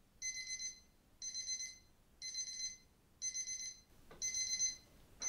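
Smartphone alarm going off: a trilling electronic beep about half a second long, repeating about once a second, that cuts off abruptly near the end.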